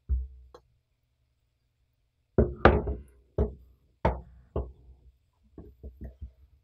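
A spoon knocking against the rim of a small glass bowl as lumps of vegetable shortening are scooped and shaken off it: one knock at the start, a string of sharp knocks in the middle, then a run of quicker, lighter taps near the end.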